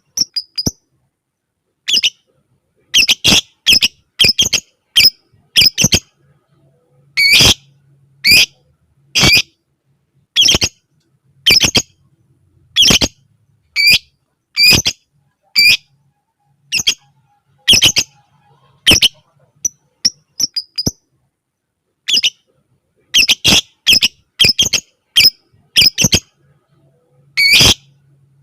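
Lovebird giving short, shrill, squawking calls one after another, about one or two a second with short pauses between runs.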